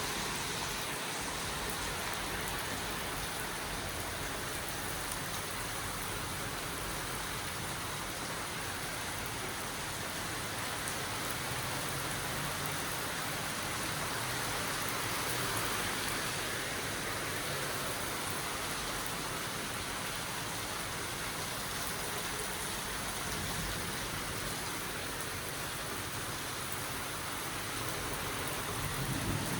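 Steady rain falling during a severe thunderstorm, an even hiss of rain on surfaces.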